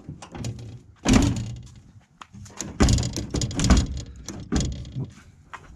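Jeep Cherokee XJ door worked by its outside handle, with the latch clicking open and the door clunking shut several times. The loudest clunk comes about a second in, and a quick cluster follows in the middle.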